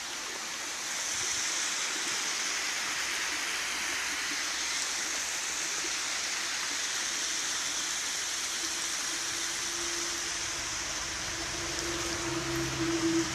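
Steady rushing noise of running water. A low hum comes in near the end.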